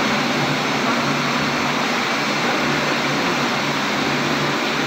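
Horizontal hydro turbine-generator unit of a 2 MW hydropower plant running: a loud, steady machine-and-water noise with a faint low hum underneath.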